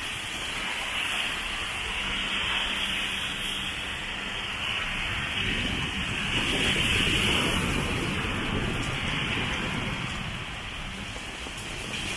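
Heavy rain falling and splashing on wet pavement, a steady hiss that swells a little around the middle.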